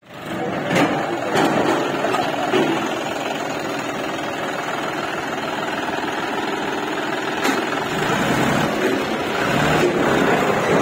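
John Deere 5105 tractor's diesel engine running steadily, with a few short knocks about a second in and again about seven and a half seconds in.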